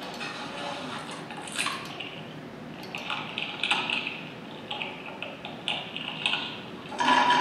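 Wet, squelchy food and liquid sounds, dripping and crackling over a steady hiss, played back by a sound-art noise machine. Just before the end a louder layer with a steady hum-like tone comes in.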